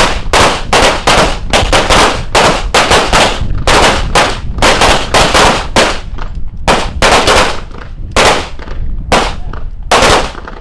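Rapid pistol fire: around thirty-five shots at several a second for the first six seconds, then a short pause and more widely spaced shots, the last one near the end.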